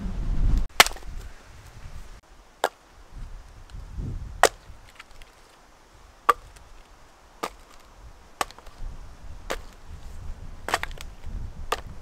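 Small axe chopping and splitting birch logs: about nine sharp wooden knocks, spaced a second or two apart, the first the loudest.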